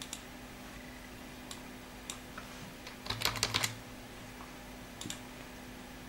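Computer mouse clicks and a quick run of about six keyboard keystrokes a little over three seconds in, over a faint steady hum.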